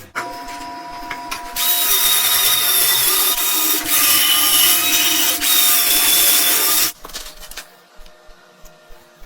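A power tool running: a steady whine that swells about a second and a half in into a loud, hissing whir for about five seconds, then cuts off abruptly, leaving a few light clicks and taps.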